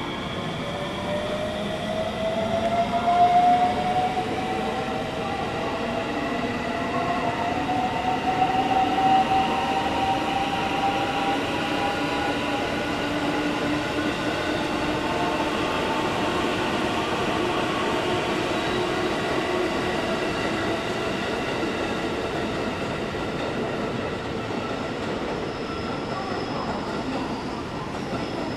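Electric train pulling out, its traction motors whining in several tones that rise in pitch over the first ten seconds or so, then hold steady and slowly fade under the running noise of the train.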